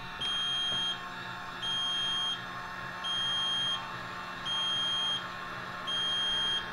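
E-Stopp electric emergency brake actuator running its motor with a steady whir as it releases the brake cables, winding down with a falling pitch at the very end. A high beep sounds five times, about a second and a half apart, while it works.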